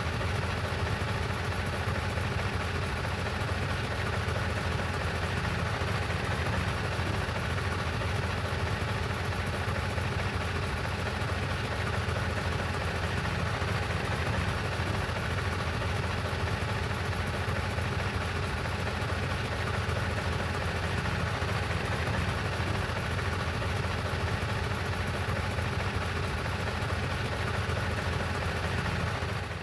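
Truck engine idling steadily, a low, even engine note that does not change.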